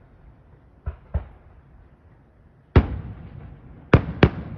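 Aerial fireworks bursting overhead: two lighter bangs about a second in, then a loud bang near three seconds that echoes away, and two more loud bangs in quick succession near the end.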